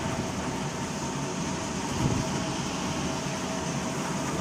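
Electric countertop blender running steadily, its motor whirring as it grinds peanut chili sauce.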